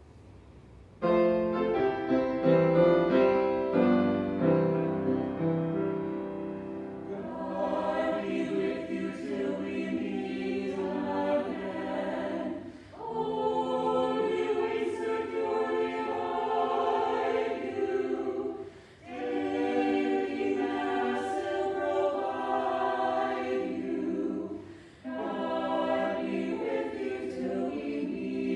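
Church hymn performance: an instrumental introduction on piano and cello starts about a second in, then singing enters about seven seconds in over the accompaniment, in phrases roughly six seconds long with short breath breaks between.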